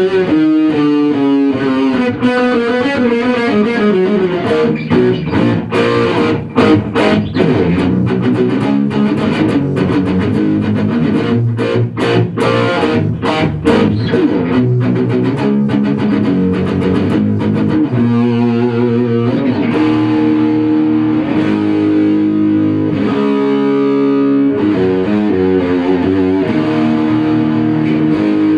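Rock music led by a distorted electric guitar through effects. It is busy with sharp, rapid strikes in the first half and settles into steadier held notes about two-thirds of the way through.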